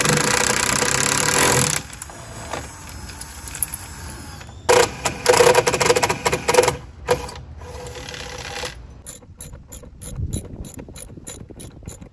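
Cordless impact driver running in two bursts at the outboard's clamp bracket, the second with rapid hammering clicks, as stainless mounting bolts go in. Near the end a ratchet wrench clicks about four times a second as a bolt is tightened.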